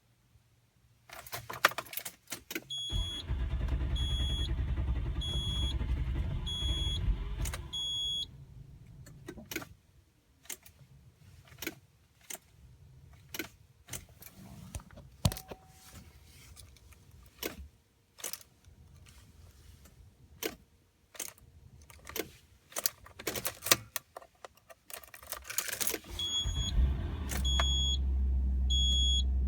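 Starting a 1997 Nissan Maxima whose owner says it is hard to start and needs the gas pedal pressed to catch. The engine runs for about five seconds with the dashboard warning chime beeping about once a second, then stops. A long run of scattered sharp clicks follows, and near the end the engine starts again and keeps running with the chime beeping.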